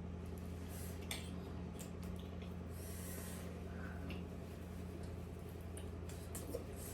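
Quiet mukbang eating sounds: a few faint clicks and mouth noises and a breathy sniff about three seconds in, over a steady low electrical hum.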